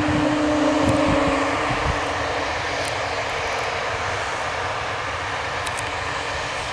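Embraer E190 jet airliner's turbofan engines howling as it taxis past: a steady rushing jet noise, with a held low tone over it in roughly the first second and a half.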